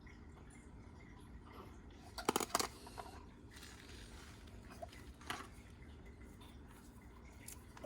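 Small metal parts and hand tools being handled during soldering: a quick run of light clicks and taps about two seconds in, then a few single clicks.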